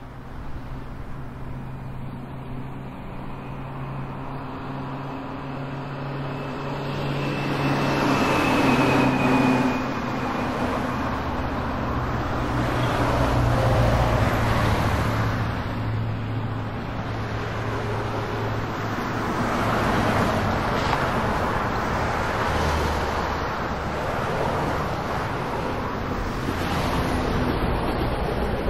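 Road traffic: vehicles passing one after another over a steady engine hum, each pass swelling and fading away. The passes are loudest about eight to ten seconds in and again around fourteen seconds.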